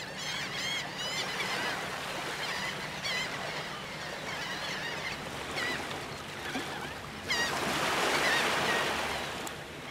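Many birds chirping and calling in quick short notes over a steady rushing noise, which swells louder about seven seconds in, with a faint low hum underneath.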